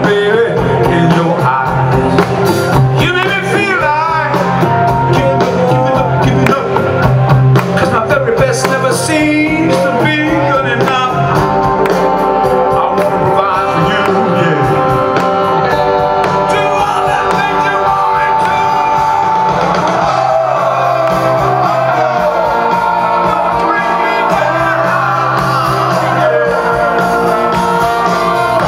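Live rock band playing at full volume, with electric guitars, organ, saxophone, trombone and drums, and a male lead vocalist singing.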